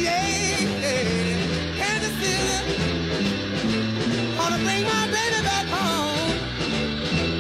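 Background rock song: a singing voice over a bass line and a steady beat.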